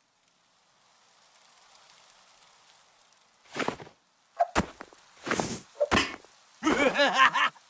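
CB radio receiver: faint static hiss, then from about 3.5 s in a string of short bursts of noisy, garbled transmissions, the last ones a distorted, unreadable voice.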